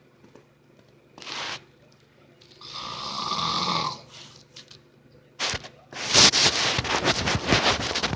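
A sleeping person snoring: a short breath about a second in, then one long snore on the in-breath around three seconds in. From about six seconds in a loud, dense run of crackling knocks takes over, louder than the snoring.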